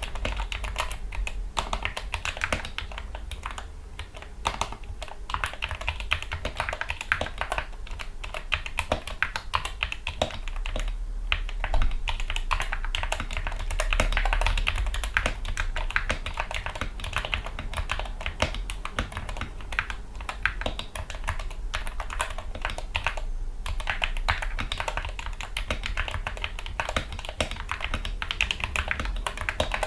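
Continuous fast typing on a Gamakay MK61 61-key keyboard fitted with lubricated Gateron Yellow optical linear switches, PBT keycaps and added foam: a dense, steady run of key clacks.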